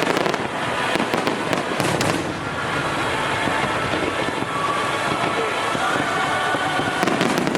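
Fireworks display going off: a continuous crackle of bursts with clusters of sharp pops near the start, around a second or two in, and again near the end.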